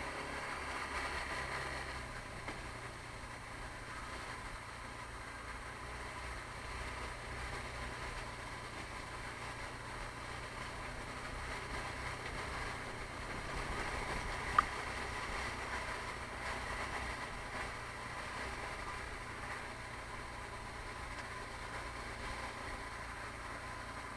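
Taotao 150cc ATV's single-cylinder four-stroke engine running steadily, with one sharp click about fifteen seconds in.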